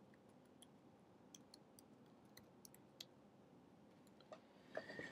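Faint, scattered clicks of computer keyboard keys being typed, with a brief high squeak near the end.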